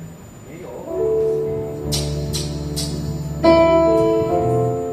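A live band playing held chords on guitar and keyboard, with three cymbal strikes about two seconds in and a louder chord change at about three and a half seconds.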